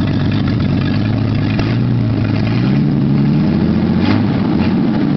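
Jeep Cherokee XJ engine running with only its new header and downpipe fitted, the exhaust open with no cat, muffler or tailpipe yet. The revs climb gently from idle and drop back near the end, a light blip of a touchy throttle.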